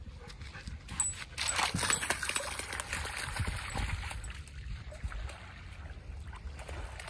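A dog splashing as it trots through shallow seawater over rocks and seaweed, busiest from about a second in until about four seconds in, then lighter. A steady low rumble of wind on the microphone runs underneath.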